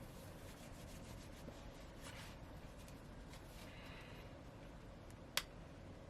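Faint tissue wiping over the phone's back cover in a few short strokes, then a single sharp click about five seconds in.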